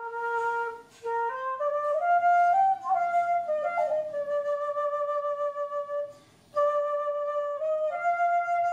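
Background music: a solo flute playing a slow melody of held notes, with two brief pauses for breath, about a second in and about six seconds in.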